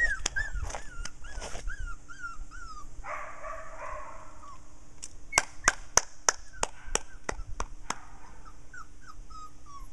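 Five-week-old goldendoodle puppies whimpering and yipping in short high whines, thickest near the start and again near the end. A run of sharp clicks comes in the middle.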